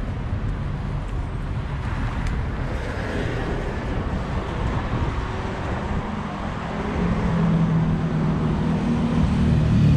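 Road traffic passing, a steady rumble of cars, with one vehicle's engine growing louder from about seven seconds in.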